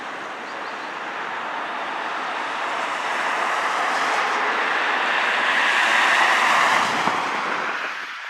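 A vehicle passing: a rushing noise that builds to a peak about six seconds in, then fades and cuts off abruptly near the end.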